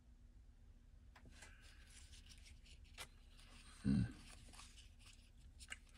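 Trading cards being handled, sliding and rustling against one another, with a few light clicks. A single dull thump about four seconds in is the loudest sound.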